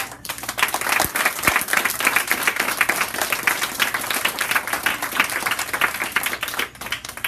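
Audience clapping: dense applause that starts suddenly and dies away near the end.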